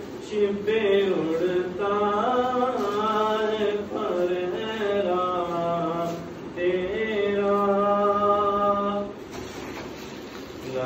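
A man's voice singing an Urdu naat unaccompanied, drawing out long held notes with slow melodic turns, with a short breath pause near the end.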